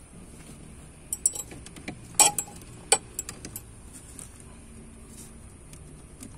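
A run of sharp small clicks and clinks, loudest twice a little past two and three seconds in, from alligator-clip test leads being handled and clipped onto a pulled EFI main relay.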